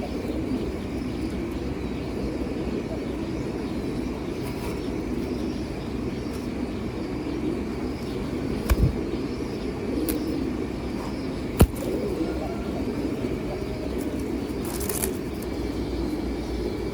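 Many pigeons cooing together in a steady murmur, with a couple of sharp knocks partway through.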